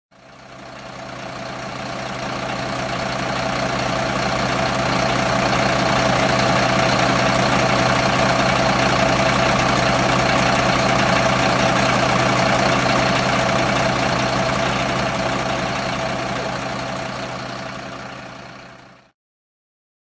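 Engine of an emergency vehicle idling, a steady hum with constant tones. It fades in over the first few seconds and fades out near the end.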